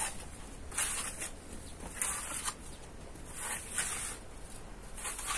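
A hand tool scraping wet plaster across a wall: four short strokes about a second and a half apart.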